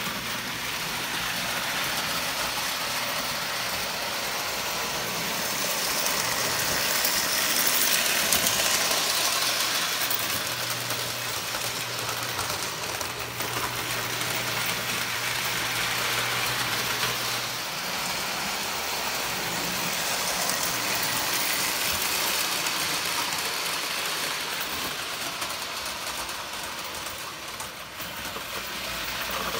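Lionel toy trains running on three-rail tinplate track: a steady rumble and clatter of wheels and motors, loudest about eight seconds in as a train passes close. A low steady electrical hum underneath stops about two-thirds of the way through.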